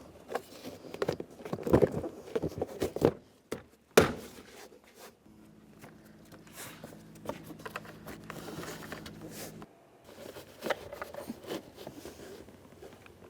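Plastic interior door trim panel being pressed and knocked onto the door of a Jeep Grand Cherokee: scattered clicks, taps and rubbing as its pins are worked into their holes, with one sharp knock about four seconds in. A steady low hum runs for about four seconds in the middle and cuts off suddenly.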